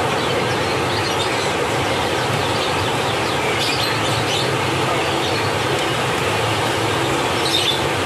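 Steady background din with a constant low hum, and a few faint, short, high bird chirps about halfway through and again near the end.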